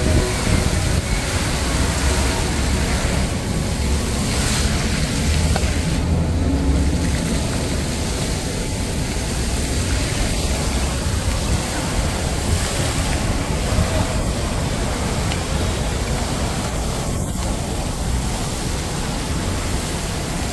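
Water from a large musical fountain jetting and splashing down, a steady rushing noise with an uneven low rumble.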